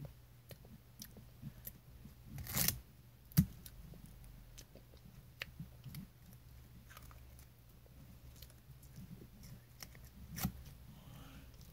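Faint tearing, biting and chewing of a thin sheet of edible paper candy: soft scattered clicks and rustles, with one sharp click about three and a half seconds in. A low steady hum runs underneath.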